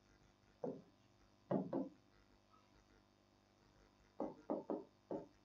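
Chalk knocking against a blackboard in short, faint strokes as writing begins. There is one knock about a second in, a pair shortly after, and a quick run of four near the end.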